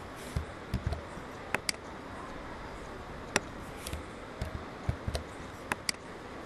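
Computer mouse clicking irregularly, a dozen or so sharp clicks mixed with soft low knocks, over a steady hiss.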